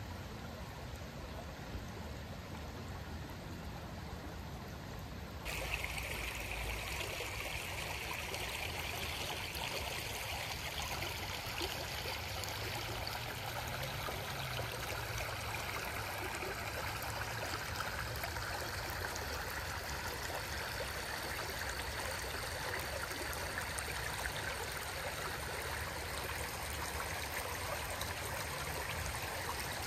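Shallow creek running over stones and gravel riffles, a steady babbling and trickling; it gets suddenly louder and brighter about five seconds in.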